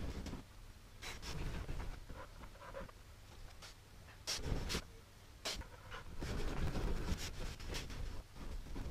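A dog panting in uneven runs of breaths, with a few louder, sharper breaths about halfway through.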